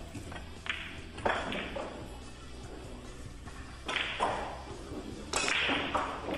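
Pool shot: the cue striking the cue ball and the balls clacking together, several sharp knocks with the loudest about a second in, over background music.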